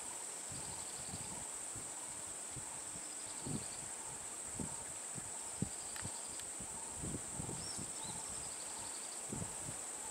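Steady high-pitched insect drone in forest, with a few faint bird chirps and scattered soft low thumps.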